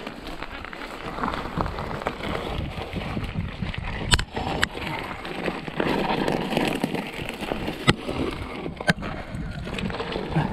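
Mountain bike rolling over a rough dirt trail: a steady rushing noise from the tyres and the ride, with several sharp clacks as the bike rattles over bumps.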